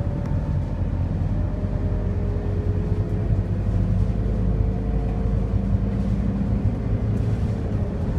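Scania K230UB city bus heard from inside the cabin while cruising at speed: a steady low drone of its rear-mounted nine-litre five-cylinder diesel and road rumble, with a faint whine that drifts slowly in pitch.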